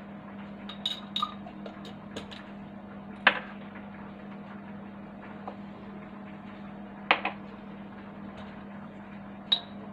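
Light kitchen handling: about six short clicks and taps of a small spoon and spice jars, scattered over a steady low hum.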